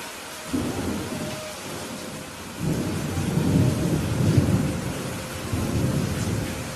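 Thunder rumbling over steady rain: a short rumble about half a second in, then a longer, louder roll that builds, peaks midway and dies away near the end.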